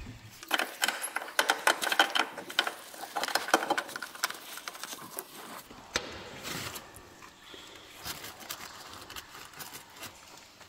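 Metal parts and tools clicking and clinking as a replacement water pump is fitted into place. The clicks come thick and fast for the first four seconds, then thin out to occasional knocks.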